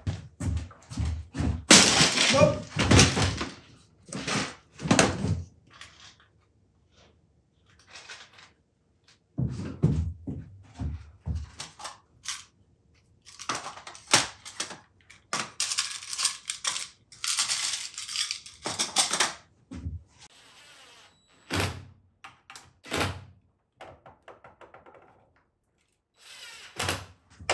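Irregular knocks and clatter of metal tools and parts being picked up and set down on a workbench and into a tray, with scraping and rustling in between.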